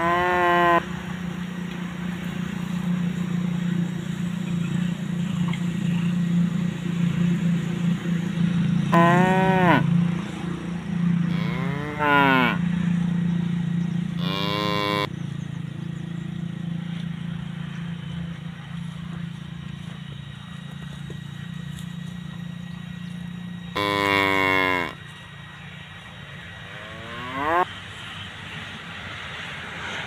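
Cattle mooing: about six short, fairly high calls spread apart, some falling in pitch and one rising near the end, the loudest a little before the end. A steady low hum runs underneath and stops just after that loudest call.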